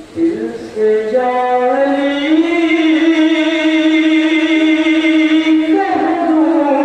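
A man singing the drawn-out opening of a devotional manqabat into a microphone, unaccompanied. His voice climbs over the first two seconds, holds one long note with a slight waver, then shifts to a new note near the end.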